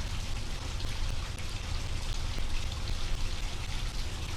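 Steady background noise: an even hiss over a low rumble, with no distinct sounds standing out.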